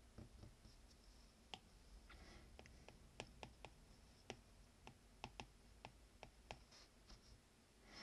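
Faint, irregular clicks of a stylus tapping on a tablet's glass screen while figures are handwritten.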